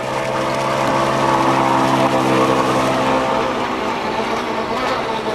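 MDS 28 two-stroke glow engine of a model power boat running at speed, a steady buzzing note that grows louder as the boat passes close about two seconds in, then fades as it moves away.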